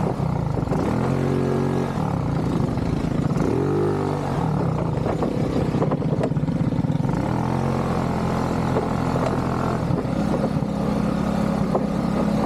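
ATV engine running as it is ridden, its pitch rising and falling several times as the throttle is opened and eased off.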